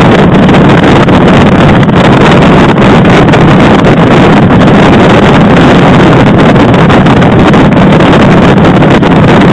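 Motorcycle riding at road speed, heard from a camera mounted on the bike: steady, very loud wind rushing over the microphone, with the engine's low running sound underneath.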